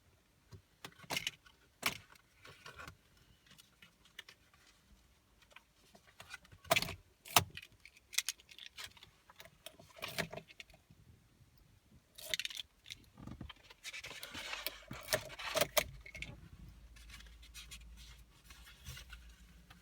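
Car keys jangling on their ring, with sharp clicks as the key is worked in and out of the Opel Astra's ignition lock to retry after a no-start. The clicks come singly at first, then run into a longer jangle about two-thirds in, followed by a faint low hum.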